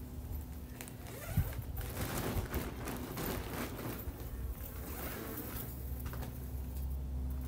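Irregular rustling and crackling of cut grass being gathered and pushed into a compost bin, busiest in the middle of the stretch. A low steady hum sits underneath.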